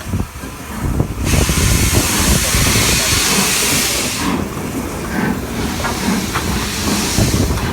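Steam locomotive starting away with its train: a loud hiss of escaping steam sets in about a second in and lasts about three seconds, over a low rumble and knocking from the engine and train.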